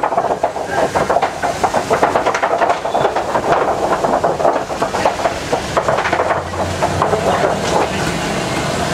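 Safari truck rolling across a wooden plank bridge: a rapid, loud clatter of boards knocking under the tyres, thinning out near the end as the truck's engine hum comes up.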